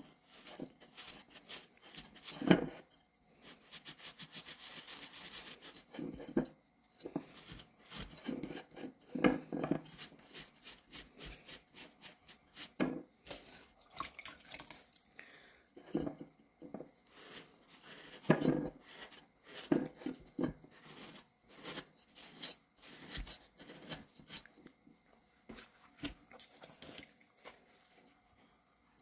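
Damp sponge scrubbing over a bisque-fired ceramic spoon rest, wiping off underglaze in repeated rubbing strokes. Short sharp knocks of the ceramic dish come now and then, the loudest a few seconds in and again about two-thirds of the way through.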